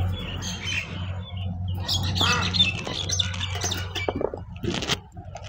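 A bird squawking several times, loudest about two seconds in, over a low steady hum.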